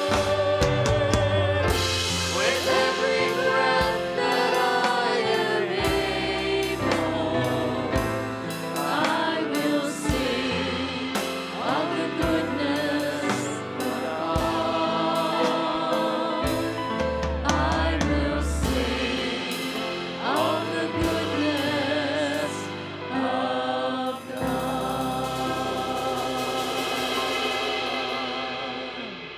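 A choir singing a worship song with band accompaniment, drums and bass under the voices. The music fades out near the end.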